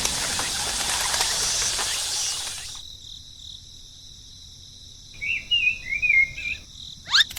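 A steady hiss cuts off abruptly about three seconds in. It gives way to a steady high insect-like drone, with a few warbling bird chirps and a quick sweeping call near the end.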